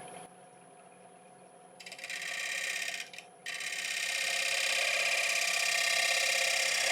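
Bowl gouge cutting a Monterey cypress bowl spinning on a wood lathe at 950 RPM: a finishing cut. The lathe runs quietly at first. About two seconds in, the gouge starts cutting with a hiss and a fast flutter, breaks off for a moment, then cuts on, growing louder toward the end.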